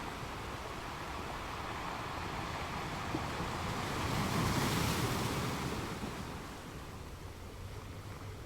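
Sea waves washing onto a beach: a steady rush of surf that swells to a peak about four to five seconds in and then ebbs away.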